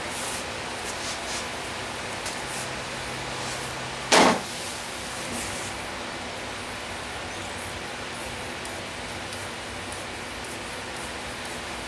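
Milwaukee scissors snipping along the edge of a black pad glued to plywood, over a steady hiss, with one sharp knock about four seconds in.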